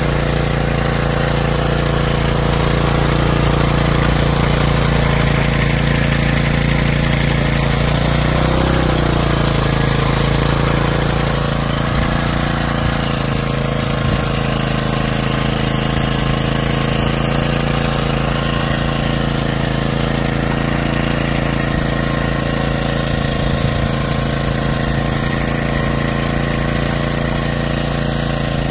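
Pubert Nano mini tiller's small engine running steadily as its tines work through dry soil, with a brief dip in engine pitch about eight seconds in.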